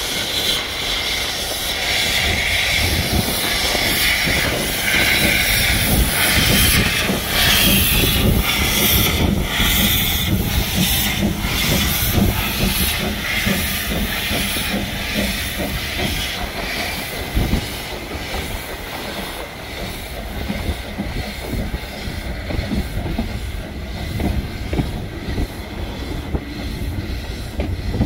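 Narrow-gauge steam tank locomotive Lyd hissing steam as it works its train away. The hiss is loudest through the first half, then the coaches roll past with a clatter of wheels on rail joints.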